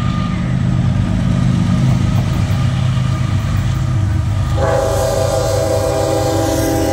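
CSX diesel freight locomotive approaching with a steady low rumble, then its air horn sounds a long chord about four and a half seconds in, still holding near the end.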